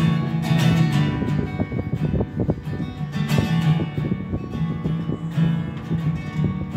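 Acoustic guitar being strummed live, with a low note that comes and goes.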